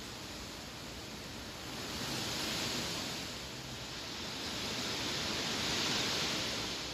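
Wind blowing through grass: a steady rustling hiss that swells in two gusts, about two and a half seconds in and again near six seconds.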